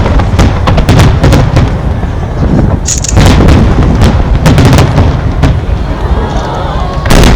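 Aerial fireworks finale barrage: shells bursting in rapid succession, many overlapping sharp bangs over a continuous low rumble.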